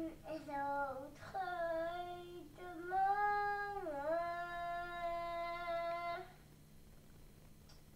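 A high voice sings a wordless tune in long held notes, like humming. The longest note lasts about three seconds, and the singing stops about six seconds in.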